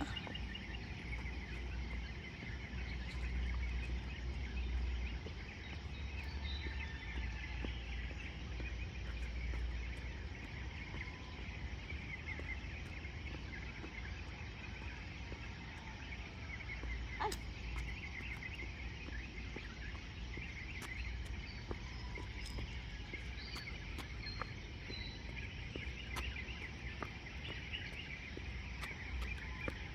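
Outdoor evening ambience: insects chirring steadily with scattered small bird chirps, over a low rumble, with a single sharp click about seventeen seconds in.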